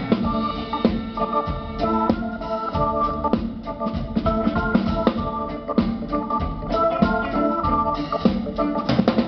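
Live band playing an instrumental passage: a stage keyboard with an organ sound plays chords and lead lines over drum kit and double bass.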